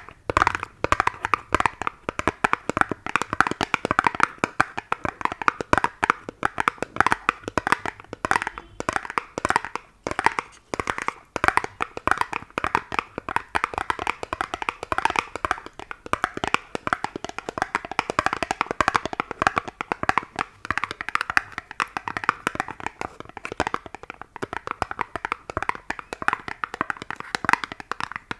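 Rapid ASMR tapping: a steady stream of quick, crisp taps, many to the second, with no breaks.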